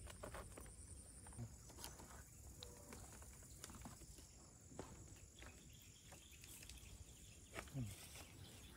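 Near silence with faint, scattered clicks and light rattles of dome-tent poles and plastic clips being handled as the tent body is hooked onto the poles, over a faint steady high-pitched whine.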